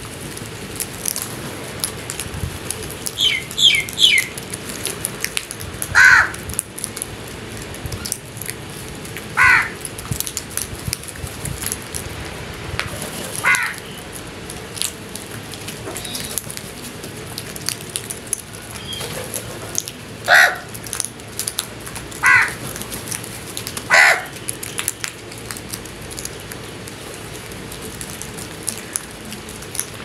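House crows cawing: a quick run of three short, higher calls about four seconds in, then single harsh caws every few seconds, the last of them some six seconds before the end.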